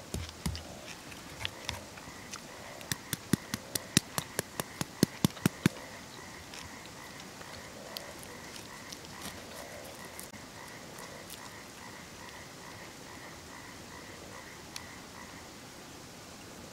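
Knife chopping food against a hard surface: a few cuts, then a quick run of about ten sharp chops a few seconds in. Behind it a frog calls with a steady pulsed chirp, about three a second, stopping shortly before the end.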